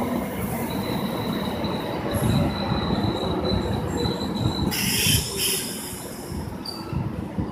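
Korail Line 1 resistance-controlled electric train (trainset 1x70) running on the rails with a steady rumble. A thin high wheel squeal holds from about half a second in until nearly five seconds, and a short hiss follows just after it.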